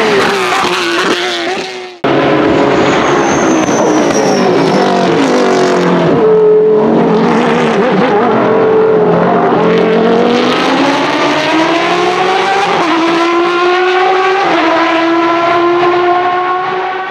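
Judd GV4 4.0-litre V10 of a 2001 Dallara SP1 sports prototype, its note falling as the car slows for a corner, then climbing again as it accelerates away, broken by a couple of gear changes.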